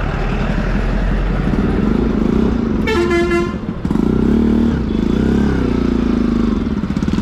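Motorcycle engine running steadily under way, with a vehicle horn honking once for under a second about three seconds in.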